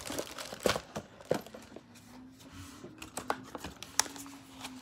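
Rustling and crinkling of small gift items and their packaging handled by hand, with several sharp clicks and taps.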